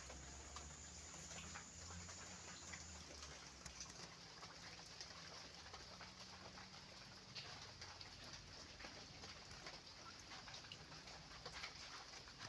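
Near silence: faint outdoor ambience with scattered light ticks and a thin high steady tone that stops about three seconds in.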